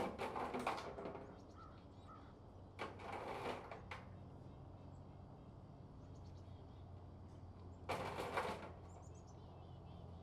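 Shovel being lifted out of a wheelbarrow and set back in: three bursts of scraping and clattering against the barrow, each about a second long, at the start, about three seconds in and about eight seconds in.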